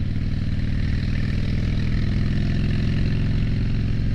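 2007 Harley-Davidson Dyna Street Bob's Twin Cam 96 V-twin running steadily while under way, through short shot exhausts, heard from the rider's helmet.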